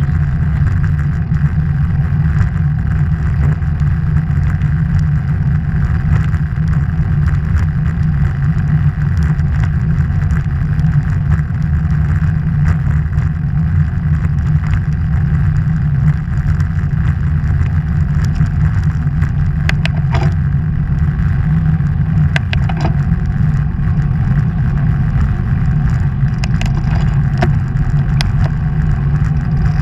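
Steady low rumble of wind buffeting the microphone of a camera moving along the road, with road noise underneath and a few brief clicks or rattles about two-thirds of the way through and near the end.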